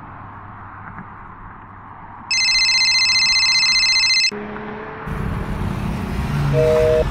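Mobile phone ringtone rings loudly for about two seconds over the low hum of a moving car's cabin, then cuts off. Near the end a short two-note phone tone sounds, like a busy signal.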